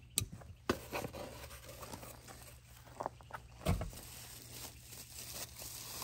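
Rustling and scattered light clicks of a small cardboard box and its foam packing being handled as a new power window switch is taken out, with one louder thump about three and a half seconds in.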